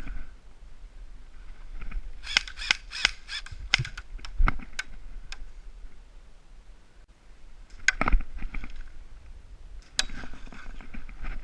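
Airsoft guns firing: a quick string of sharp cracks, several a second, then spaced single shots, with a few more shots near the end.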